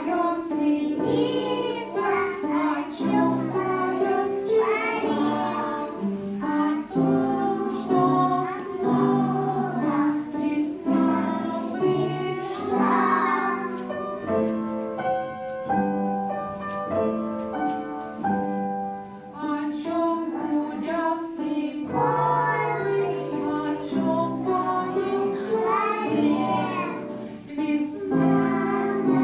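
A group of young children singing a song together over instrumental accompaniment, with a short instrumental passage midway.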